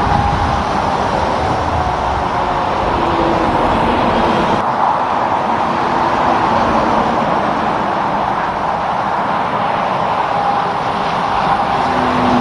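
Road traffic noise: vehicles and trucks passing steadily, a mix of tyre noise and engines. The low rumble drops away abruptly about four and a half seconds in.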